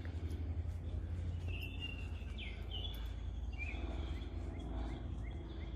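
Steady low outdoor rumble with a wild bird chirping a quick run of short, sliding high notes, mostly about a second and a half to three seconds in.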